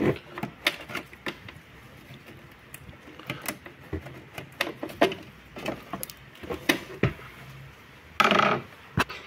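Scattered sharp plastic clicks and rattles of multi-pin wiring-harness connectors being unlatched and worked loose from an engine-bay control module, with a louder half-second clatter near the end.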